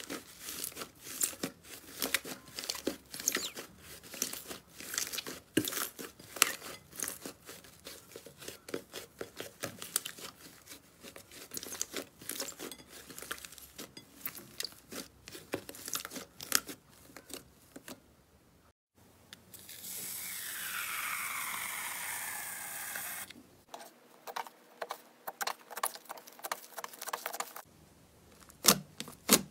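Hands kneading and squeezing crumbly fluffy slime, giving dense rapid crackling and tearing sounds. Past the middle there is a short break and then a few seconds of steady hiss with several falling tones. Crackling resumes after that, and near the end louder sharp pops come as a dome of green slime is pressed.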